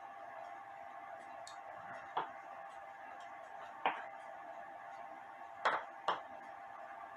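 Four sharp clicks and taps of small metal parts and tools being handled while working on cuckoo clock bellows, the last two close together, over a steady faint hum.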